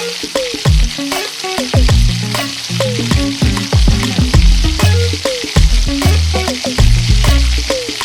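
Chicken frying and sizzling in a pan while being stirred, with frequent sharp pops. Background music with a low bass line plays along.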